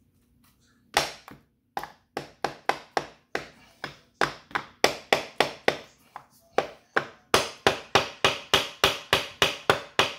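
A hand repeatedly tapping on a Kawasaki ZX10R's clutch cover, dozens of sharp taps at several a second starting about a second in. The tapping is meant to break the cover loose from its stuck paper gasket without prying it.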